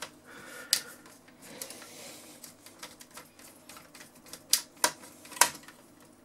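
A screwdriver working on the plastic and metal parts of a cassette deck's tape mechanism: a sharp click under a second in, faint scraping, then three quick clicks and knocks near the end as the parts are handled.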